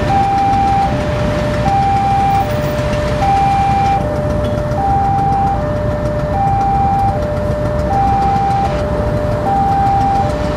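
Railway level-crossing alarm sounding its two-tone electronic warning, a high and a low note taking turns, each held just under a second. The warning signals that a train is coming and the barriers are down. Under it runs a steady rumble of engines from the waiting traffic.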